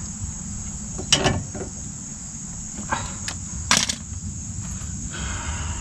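Crickets chirping steadily in the background, with a few short clicks and knocks of metal parts and tools being handled, the loudest a little under four seconds in.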